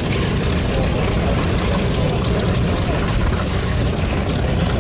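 A radial-engine propeller warbird at takeoff power on its takeoff roll, a steady drone heard from a distance.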